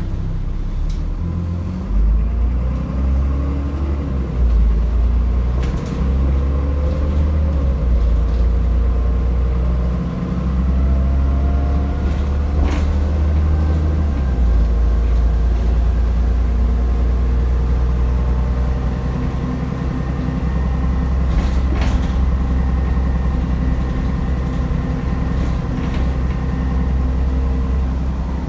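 Alexander Dennis Enviro400 double-decker bus running on the road, heard from inside the passenger saloon: a steady low engine drone that shifts in steps as the gears change, with a whine rising and falling in pitch and a few sharp knocks from the body.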